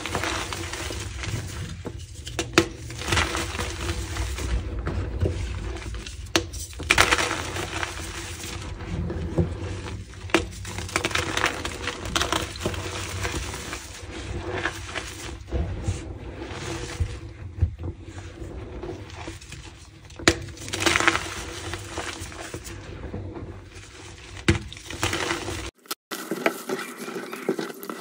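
Slices of gym chalk crunching, cracking and crumbling as they are broken and crushed, with many sharp snaps. The sound changes abruptly near the end.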